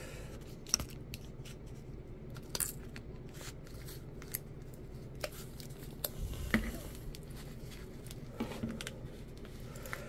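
Needle-nose pliers gripping and tugging the heat-shrink wrap on a LiPo battery pack: a scattering of light clicks and small taps, busiest about six to seven seconds in.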